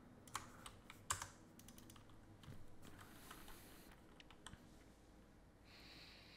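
Faint, scattered clicks of a computer keyboard and mouse: a few keystrokes and clicks spread unevenly, most in the first couple of seconds, with a soft hiss near the end.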